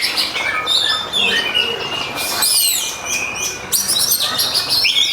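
Oriental magpie-robin (kacer) singing loudly without a break: a fast, varied run of high whistles, trills and sharp downward-sweeping notes, in the full-volume fighting style that keepers call gacor ngeplong.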